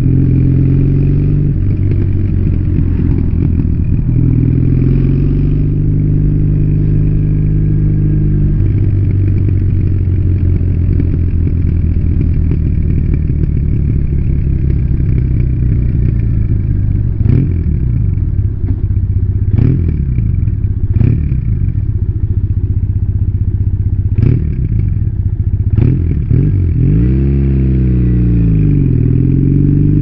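Triumph Bonneville parallel-twin engine through its stock exhaust, heard from the moving bike. The revs shift over the first several seconds, then hold a steady cruise. A handful of short, sharp knocks come in the middle stretch, and near the end the revs fall away and climb again.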